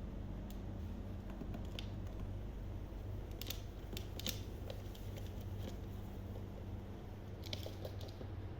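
Scattered light clicks and taps, with a cluster around the middle and another near the end, over a steady low hum.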